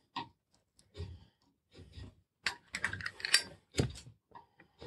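Metallic clicks of a flip-top Zippo-style lighter being opened and handled, among small clicks and rustles of wire being handled, with a denser scratchy burst about two and a half seconds in and a sharp click just after.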